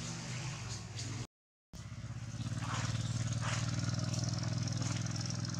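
A steady low hum of a running engine. The audio drops out completely for a split second about a second and a half in, and the hum resumes straight after.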